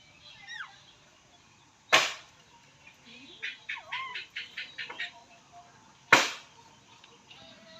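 Alexandrine parakeet calling: a short falling whistle, then a quick run of about eight short, harsh notes. Two sharp, loud knocks, about four seconds apart, are the loudest sounds.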